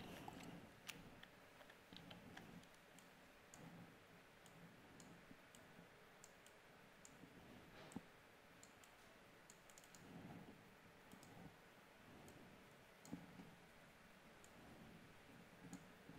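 Near silence: faint, irregular clicks of a computer being worked by mouse and keys, over quiet room tone.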